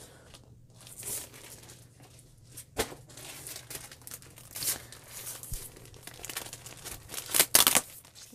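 Crinkling and rustling of cross-stitch kits' clear plastic packaging as they are handled and swapped, in irregular bursts that are loudest near the end, with one sharp tap about three seconds in.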